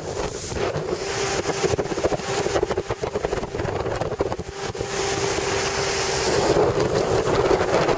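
Motorboat under way: a steady engine drone under heavy wind buffeting on the microphone, with water rushing past the hull.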